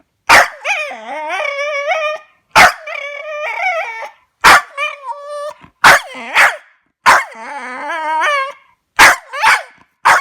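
A dog barking sharply about every one to two seconds, six or seven times, each bark running on into a long, wavering howl-like whine.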